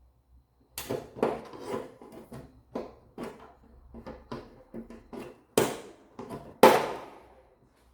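Plastic trim clips and cowl trim pieces being worked loose and handled: a string of irregular clicks, snaps and knocks, with two louder knocks a little past the middle.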